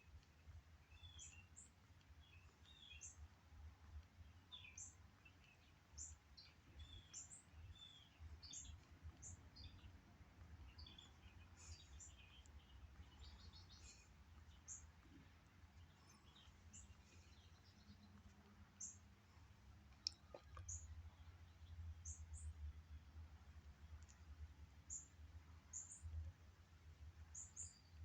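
Birds chirping faintly, with many short, high chirps in quick succession over a low rumble, and a single sharp click about twenty seconds in.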